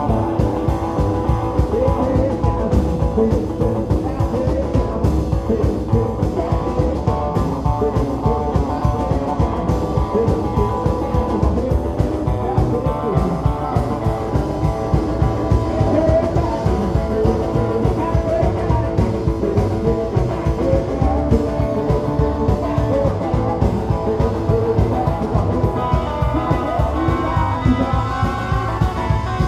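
Rock and roll band playing live: electric guitar and acoustic guitar over upright bass and drums, with a steady, fast beat.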